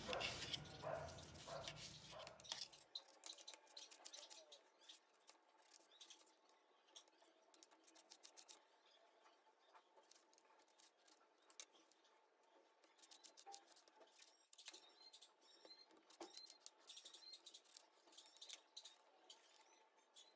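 Knife cutting vegetables: crisp slicing through red onion in the first couple of seconds, then faint, scattered clicks and cuts as tomatoes are sliced on a plate.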